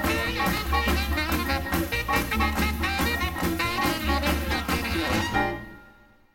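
Upbeat theme music with a steady beat for the opening titles. It ends about five and a half seconds in and dies away to near silence.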